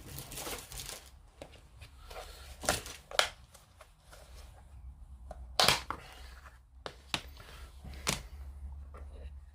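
Rustling, then a handful of sharp clicks and taps from small items and tools being picked up and set down on a modelling bench while masking tape is fetched; the tap a little over halfway through is the loudest.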